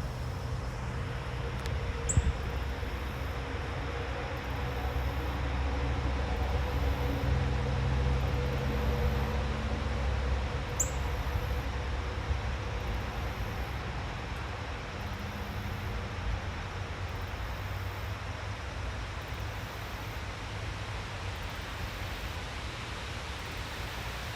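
Outdoor ambience dominated by a low rumble of a distant vehicle, swelling through the middle and easing off toward the end. Two brief high chirps sound about two seconds in and again near the middle.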